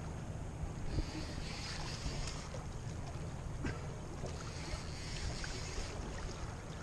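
A boat on a river: a steady low rumble with water noise around the hull, and patches of hiss that come and go. There is a small knock about a second in.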